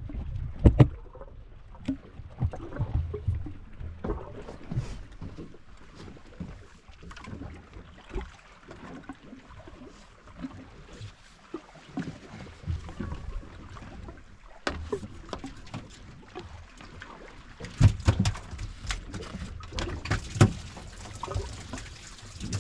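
Scattered knocks, clicks and bumps of handling tackle and a caught fish aboard a small fishing boat, over a low rumble, with a louder stretch of rustling hiss in the last few seconds.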